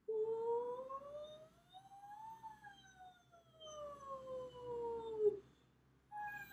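A woman singing a rounded-lip "ooh" vocal siren, a semi-occluded exercise like straw phonation without the straw. One smooth glide rises for about two and a half seconds and falls back down; near the end a second glide starts high and falls. She feels the sound getting a little tight, with her larynx a little elevated.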